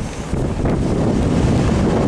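V/Line VLocity diesel multiple unit passing through the station at express speed without stopping: a steady rumble of the train going by, with wind buffeting the microphone.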